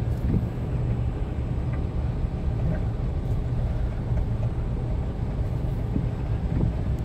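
A car driving slowly through shallow floodwater, heard from inside the cabin: a steady low rumble of engine and tyres in the water.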